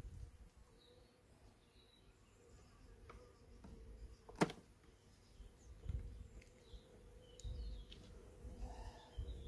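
Honeybees buzzing faintly at an opened hive while wooden frames are handled, with one sharp knock of wood about four and a half seconds in.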